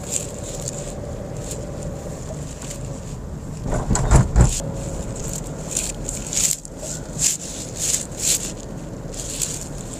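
Steady road and engine noise heard inside a moving car. About four seconds in there is a louder rumble lasting about a second, and the second half has a run of short hissing sounds.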